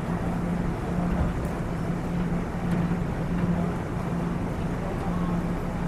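Idling diesel engine of a stopped passenger train: a steady low rumble with a droning tone that swells and fades every second or so.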